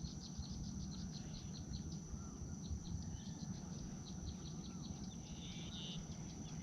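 Insects droning in a steady high tone with rows of quick chirps, and a bird giving small rise-and-fall calls about once a second, over a low rumble.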